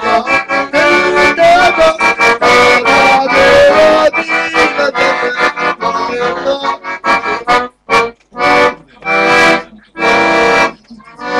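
Piano accordion played solo: a fast melody of quick running notes, turning about seven seconds in to a few long held chords with short breaks between them.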